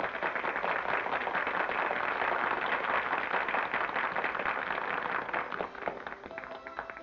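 Carnival audience applauding, a dense patter of many hands clapping that dies away near the end as music comes up.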